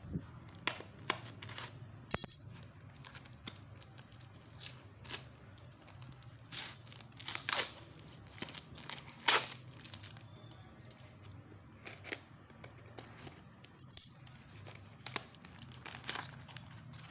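Tape-wrapped cardboard package being torn open by hand: irregular ripping and crinkling of cardboard and packing tape, with a few louder tears about halfway through. A faint steady low hum lies underneath.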